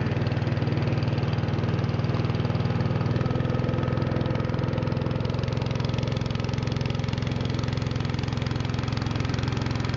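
Motor of a wooden river longboat running steadily under way, a constant engine drone with a slight change in pitch about three seconds in.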